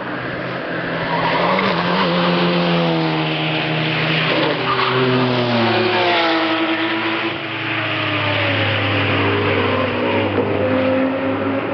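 Race car engine passing at full throttle. The engine note climbs for the first few seconds, drops about six seconds in as the car goes by, then climbs again near the end.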